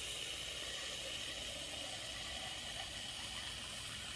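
Garden hose spray nozzle running water into an empty aluminium soda can: a steady hiss as the can is filled with water to weigh it down.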